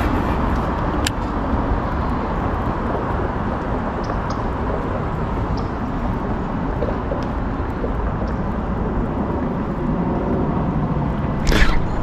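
Steady hum of road traffic, with a sudden sharp splash near the end as a bass strikes the spinnerbait at the surface.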